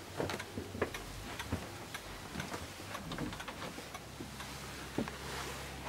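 Irregular light clicks and knocks from a handheld camera being carried and handled while walking through a house, with a faint steady low hum coming in about four seconds in.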